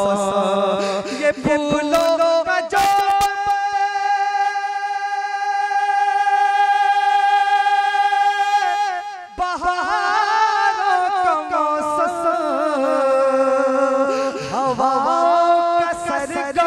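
A man singing a naat into a microphone. He holds one long, steady note for about six seconds, then carries on in wavering, ornamented runs.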